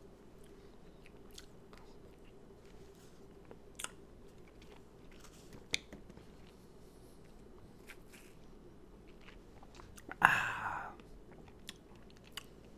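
Quiet mouth sounds of a person eating: faint chewing and scattered small clicks, with one louder mouth noise lasting under a second about ten seconds in.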